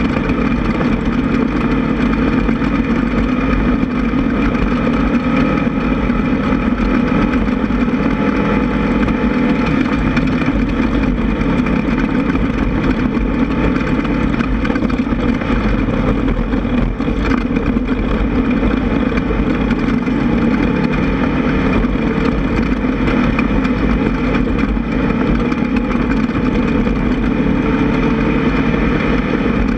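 The air-cooled VW engine of a Class 1600 off-road race buggy running steadily under racing load, with no letup.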